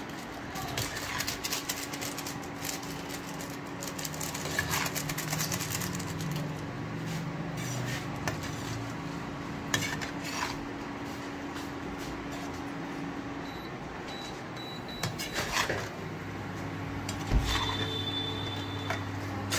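Metal spatula scraping and clinking against a frying pan as macaroni is stirred, with a busy run of scrapes over the first several seconds and only occasional ones later. A steady low hum runs underneath.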